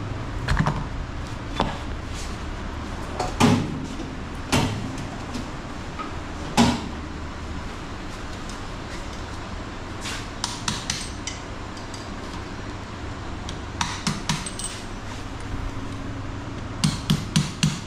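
Metal hand tools clinking and knocking on a Yamaha MT-15's upside-down front fork leg while its torn oil seal is replaced, in scattered sharp knocks, with a quick run of about five taps near the end.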